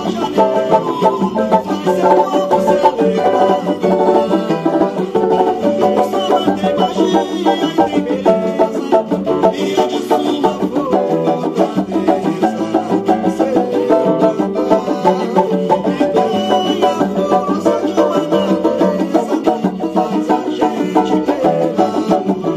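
Brazilian banjo cavaquinho (four-string samba banjo) strummed quickly in a samba rhythm, with lower bass notes underneath.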